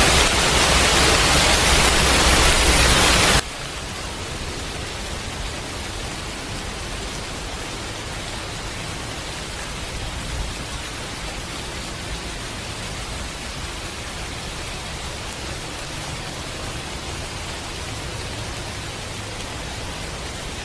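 A steady hiss of rain or rushing water, loud for about the first three and a half seconds, then cutting suddenly to a quieter steady hiss.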